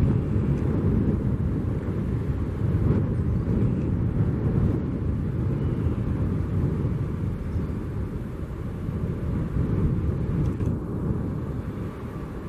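Jet airliner engines, a steady low rumble, with a faint whine coming in near the end.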